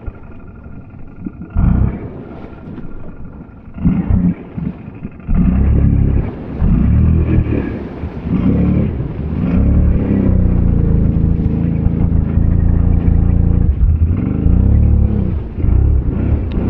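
ATV engine revving hard and repeatedly, its pitch rising and falling, with a high rev held for a few seconds just past the middle. It is quieter for the first five seconds, with two short surges, then runs loud.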